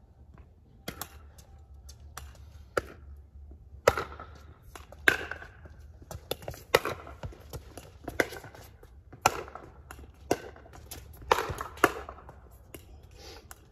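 Pickleball rally: paddles striking the plastic ball back and forth, sharp pops about once a second from about four seconds in, with a few fainter taps before.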